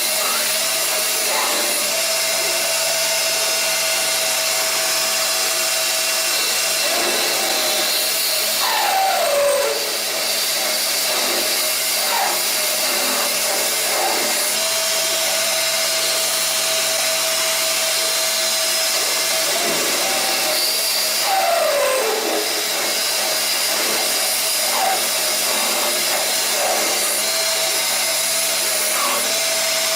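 CNC lathe running: a steady mechanical whir and hiss with a held tone that drops out and comes back. Twice, about twelve seconds apart, a whine falls in pitch, a repeating machining cycle.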